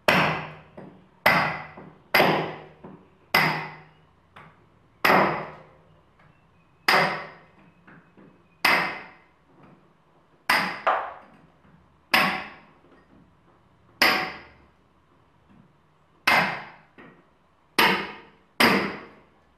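A series of sharp strikes on a hard, resonant object, about fifteen of them at an uneven pace of roughly one every one to two seconds. Each rings briefly and dies away within about a second, and a few fainter taps fall between the main blows.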